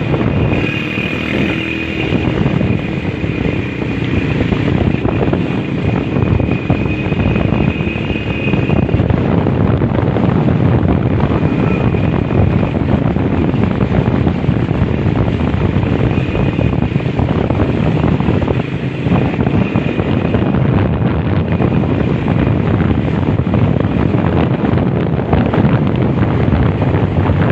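Steady rumble of a vehicle on the move, with wind buffeting the microphone and a faint thin whine that comes and goes.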